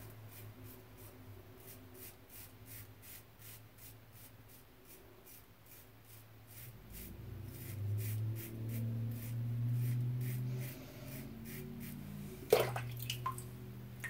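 Muhle R41 double-edge safety razor with an Astra SP blade scraping through lathered stubble in short strokes, about three a second, on a first pass. About halfway in, water starts running, and a single sharp knock sounds near the end.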